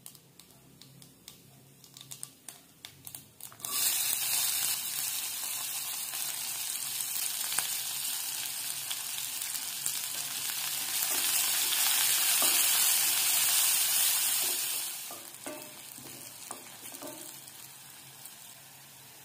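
Hot oil in a kadai crackling with a few scattered pops from fenugreek seeds, then sizzling loudly all at once as sliced shallots, curry leaves and green chillies go in. The sizzle swells, then settles to a quieter fry, with a few knocks of a wooden spatula stirring near the end.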